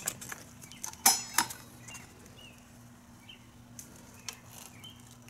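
Clicks and light clattering from handling a digital multimeter and its test leads as it is set in place, with a few sharp knocks, the loudest about a second in.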